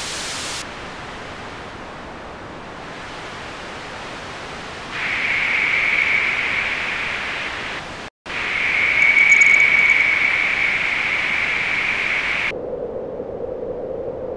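Digitally synthesised white noise from Pure Data's noise~ running through a biquad~ resonant low-pass filter whose cutoff and resonance are being changed. The hiss dulls at the top, then a whistling resonant band near 2 kHz comes in about five seconds in. It cuts out for a split second near the middle. About twelve seconds in, the highs drop away, leaving a muffled hiss with a lower resonant tone.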